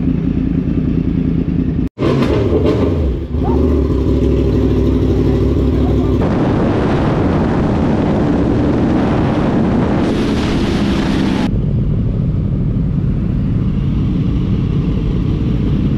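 Yamaha sport-bike engines running in a string of short cuts, with a brief dropout about two seconds in. From about six seconds in, a loud rushing noise like wind at riding speed covers the engine for several seconds, then steady engine running returns.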